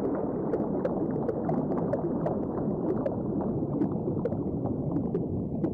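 Underwater-style water ambience: a steady low gurgling with small bubble pops and irregular sharp clicks, a few each second.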